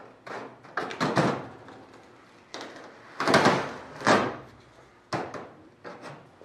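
Handling noise: a series of short scraping and rustling sounds as the wooden router template is pulled off the aluminium wing skin. The loudest come a little after the middle.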